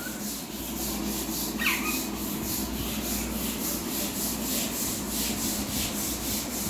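Steady rhythmic scraping or rubbing, about four strokes a second, with one short falling bird chirp less than two seconds in.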